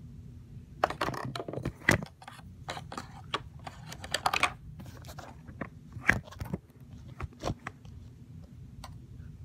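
Handling noise: irregular clicks, taps and rustling as small objects are rummaged in a plastic basket and the phone is moved about, with a couple of sharper knocks about two and six seconds in.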